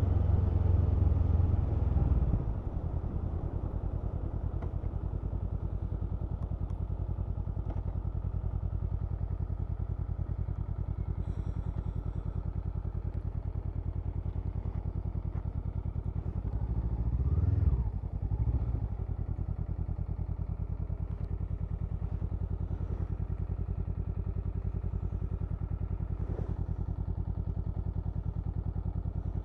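Honda CMX500 Rebel's parallel-twin engine idling with a steady, even beat. It is louder for the first two seconds or so, and there is a brief rev and fall-back about seventeen seconds in.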